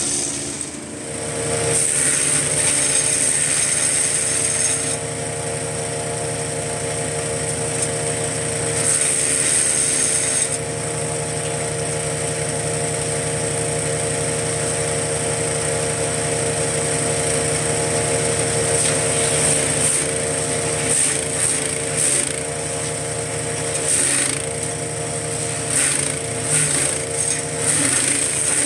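POWERFIST 420cc single-cylinder gas wood chipper running steadily, with bursts of harsh grinding and crackling as material is fed in and shredded, several of them about a third of the way in and a string of them in the last third, where the engine note dips slightly under the load.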